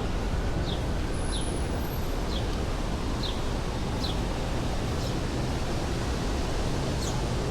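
Steady rushing background noise, with a small bird chirping over it in short, high, falling notes about once a second.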